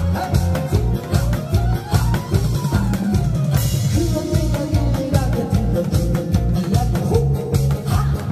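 Loud, upbeat band music playing over a PA, with a steady drum beat and guitar. Early on a melody line slides up in pitch and then back down.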